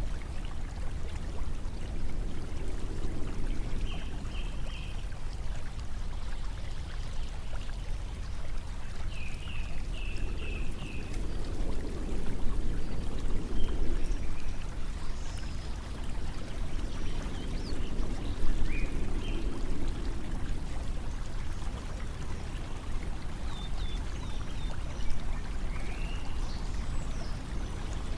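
Steady rushing of flowing water, like a stream, with a low rumble that swells and fades every several seconds. Short high chirps come in small groups of three or four now and then.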